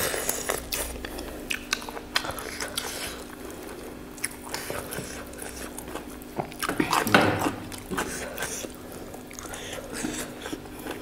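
Close-miked chewing and biting into meat: many small irregular clicks and crunches of teeth and wet mouth sounds, with a louder stretch about seven seconds in.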